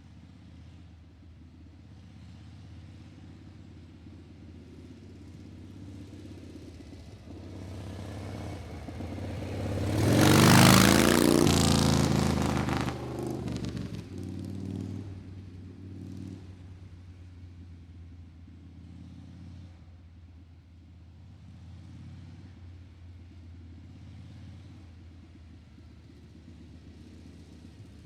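A motor vehicle's engine running steadily with a low hum; about ten seconds in the sound swells to a loud rush lasting a few seconds, then fades back to the steady hum.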